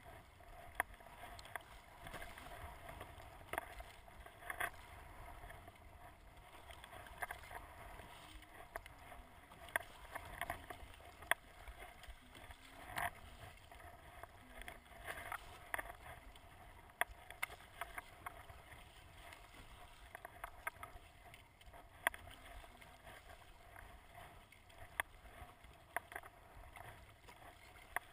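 Kayak being paddled through choppy water: steady sloshing and splashing of water around the hull and paddle blades, with frequent irregular sharp clicks and knocks.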